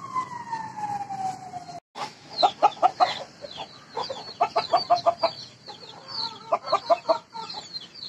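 A rooster's crow ends in a long falling note in the first two seconds. Then chickens cluck in quick groups of short calls, with high chirps scattered throughout.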